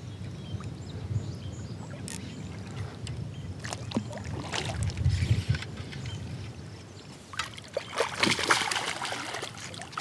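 Wind rumbling on the microphone with a few scattered clicks and knocks. About eight seconds in, a hooked largemouth bass splashes at the water's surface in a short flurry.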